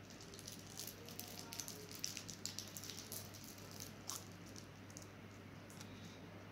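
Faint crackling and light ticks from a plastic-wrapped henna cone squeezed as it pipes paste onto paper, clustered in the first four seconds or so, over a steady low hum.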